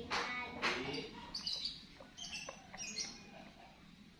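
A person drinking from a glass, two quick sips about half a second apart at the start, followed by a few short high bird chirps in the background.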